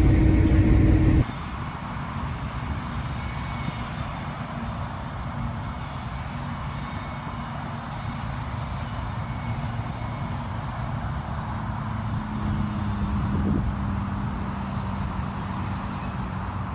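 Combine harvester running with a steady drone. A louder stretch in the first second ends abruptly.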